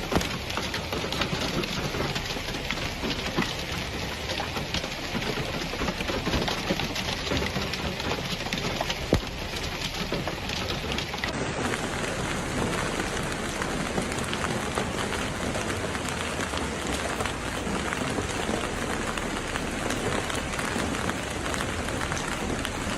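Heavy storm downpour pelting hard surfaces: a dense, steady patter full of sharp ticks. The sound shifts slightly in character about eleven seconds in.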